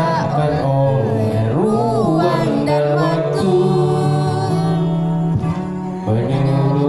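A voice singing a slow Indonesian pop ballad over backing music with guitar.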